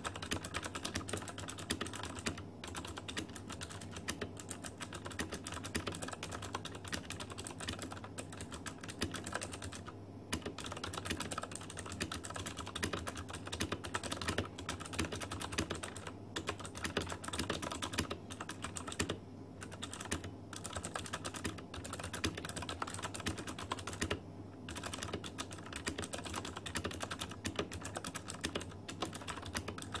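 Fast, continuous typing on a Ducky Zero DK2087 mechanical keyboard with clicky blue switches, each keystroke a sharp click, broken by a few short pauses.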